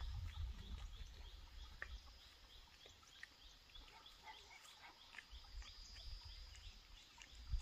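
Insects chirping in an even rhythm, about four chirps a second, over a steady high hum, with scattered faint clicks and a low rumble that swells near the end.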